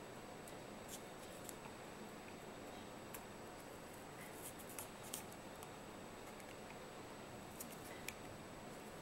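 Faint handling sounds of cotton adhesive tape and a flat latex band being wrapped around a slingshot fork: a few small, sharp ticks and crackles scattered over a steady hiss.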